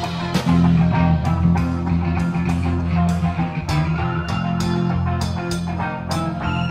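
Instrumental psychedelic rock jam: electric guitar and sustained bass notes over a steady drum beat, with cymbal hits about three times a second.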